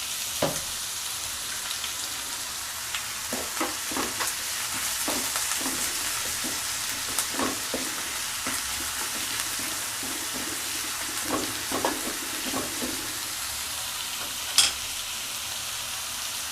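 Sliced onions sizzling steadily in hot coconut oil in a pan, with a spoon stirring and scraping them every so often. A single sharp clink near the end.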